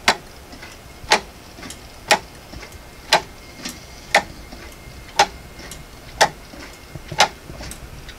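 3D-printed plastic pendulum clock ticking: a sharp loud tick about once a second, with a fainter tick about halfway between each pair.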